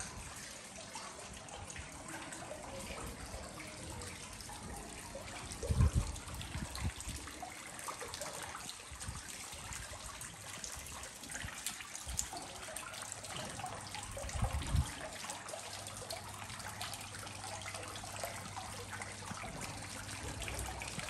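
Steady running water, a constant splashing rush with no pauses. Two short, low thumps stand out, about six seconds in and again near fifteen seconds.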